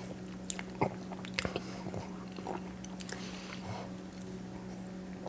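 A man chewing a bite of a piña colada truffle with toasted coconut: scattered soft mouth clicks and smacks, over a steady low hum.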